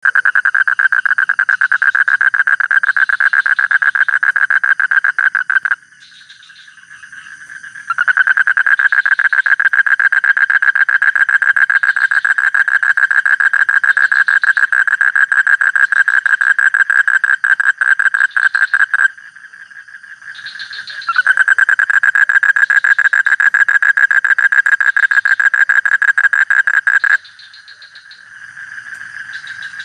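A frog calling close by in long, very fast trills, each lasting several seconds, with short pauses between them in which fainter calls carry on.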